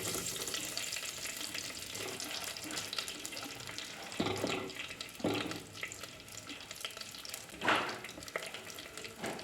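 Pressure-cooked pork pieces frying in hot oil in a pan, a steady crackling sizzle. A few louder knocks or scrapes come a few seconds in and near the end.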